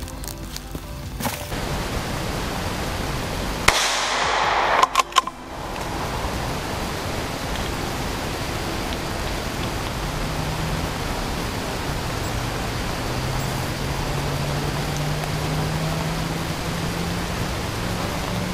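Steady rushing noise, with a short burst of louder noise about four seconds in.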